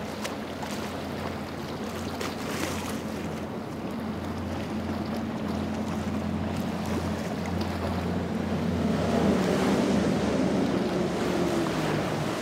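Twin Mercury 300 outboard engines on an Axopar cabin boat running at speed, a steady low drone mixed with the rush of the hull's spray on choppy water and wind on the microphone. The drone grows louder about nine seconds in as the boat comes closer.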